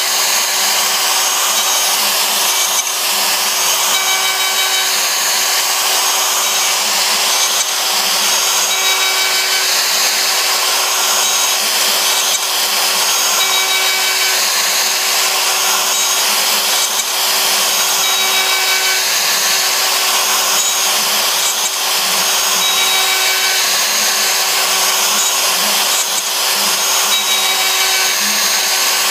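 CNC router spindle running steadily while a 1/2-inch straight-fluted plunge bit cuts plywood on a radial finishing pass: a constant whine under a dense cutting noise. Short higher-pitched tones recur about every two seconds as the cut moves around the pocket.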